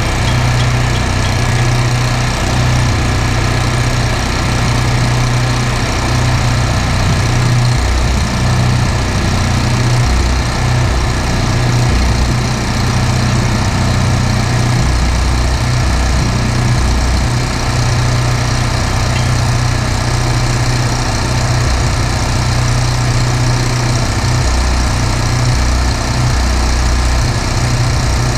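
An engine running steadily, with a strong low hum that does not change.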